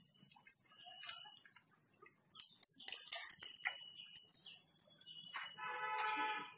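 Scattered crackles and clicks, then a single pitched animal call lasting about a second near the end.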